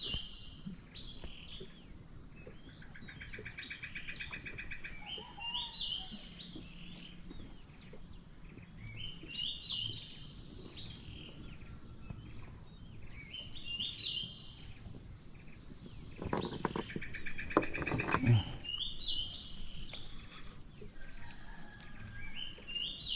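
Riverside forest ambience: a bird giving the same short call over and over, about every four to five seconds, over a steady high insect drone, with a short buzzing trill twice. A brief close-up rustle or knock comes about two-thirds of the way through.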